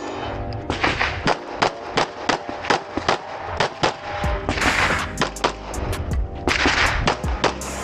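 Handgun shots fired in a fast, steady string of roughly three a second as a shooter works through a match stage, with music playing underneath.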